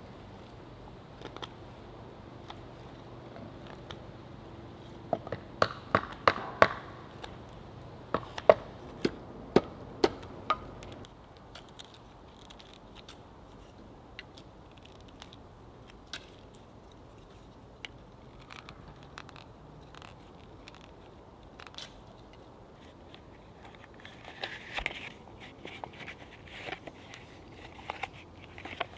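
A knife whittling wood by hand: a run of about a dozen sharp snapping cuts, then lighter scattered cuts and scraping.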